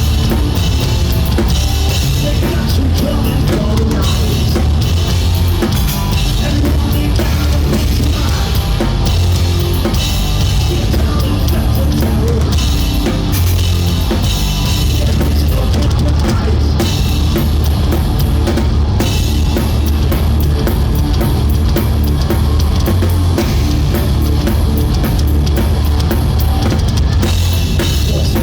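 Live rock band playing at full volume, the drum kit loud in front with a heavy, steady bass drum and cymbal crashes over guitars and bass.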